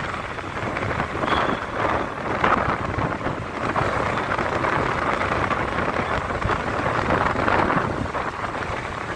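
Wind rushing over the phone's microphone, mixed with road and traffic noise from a vehicle moving at speed.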